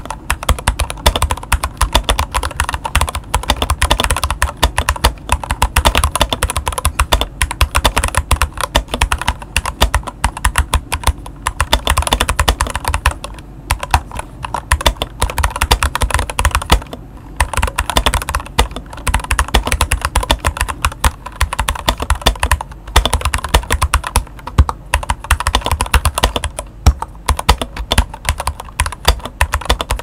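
Fast continuous typing on an ilovbee i61 hot-swappable 60% mechanical keyboard with its stock ilovbee Red linear switches and PBT keycaps: a dense run of keystrokes, with brief pauses about 13 and 17 seconds in.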